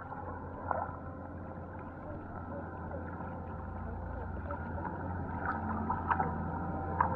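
Water sloshing around hands working among rocks on a shallow rocky bottom, with a few sharp clacks of stone on stone (one about a second in, and several near the end), over a low steady rumble.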